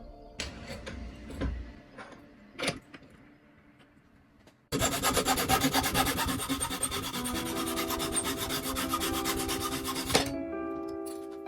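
Scattered light clicks and knocks, then, a little under halfway in, a sudden start of fast, evenly repeating rasping strokes, like a tool cutting or filing metal, that stops shortly before the end. Music tones play under the later part.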